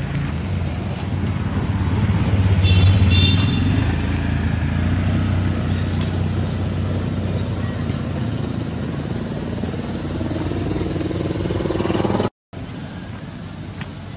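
A motor engine running steadily with a low hum, loudest a few seconds in, with a few brief high chirps about three seconds in. The sound cuts off abruptly near the end and comes back quieter.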